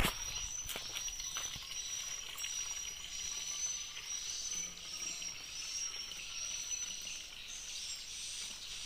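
Water trickling steadily from a plastic bucket into the narrow neck of a 2-litre hand pump sprayer bottle, with a steady high insect drone behind it.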